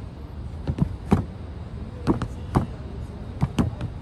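Punches landing on an upright striking post in a run of sharp hits, several coming in quick pairs like combinations, over a steady low background hum.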